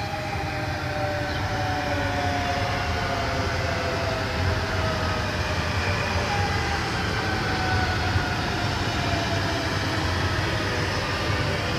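SNCF TER 2N double-deck electric multiple units moving through a station: a steady low rail rumble with electric traction-motor whines that slowly fall in pitch as the trains slow.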